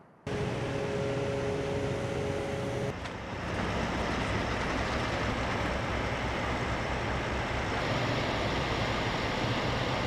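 Steady rumble of idling heavy diesel trucks, with two steady hum tones over it for the first few seconds; the sound shifts abruptly about three seconds in.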